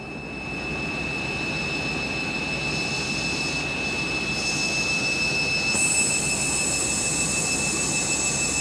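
Candy washing machine running with its drum turning, a steady mechanical rumble with a constant high motor whine that swells over the first second, and a further high whine coming in near the end. The drum is overloaded and full of suds, which the owner hears as clogged up in a suds lock.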